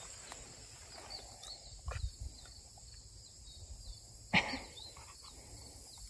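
Outdoor field ambience: a steady high insect buzz with a few short, high chirps and some light rustling. One sudden short sound about four seconds in is the loudest thing.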